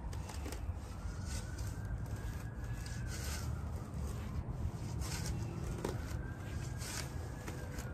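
A shovel scraping and cutting into soil in several short strokes, over a steady low hum. A faint distant siren rises and falls twice.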